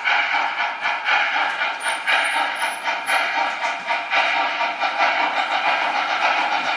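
Märklin H0-scale model of the Union Pacific 844 steam locomotive playing its digital steam sound: rhythmic chuffing with hiss, about three to four beats a second.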